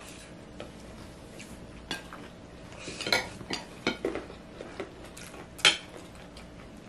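Metal spoons and forks clinking and scraping against plates while eating, in scattered short clicks, the loudest about three seconds in and again near six seconds.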